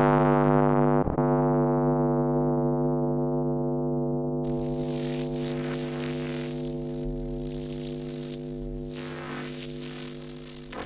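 Electric-arc sound effect: a steady, pitched electrical hum with many overtones that slowly fades and loses its brightness. There is a brief click about a second in, and a high hiss comes in about four and a half seconds in.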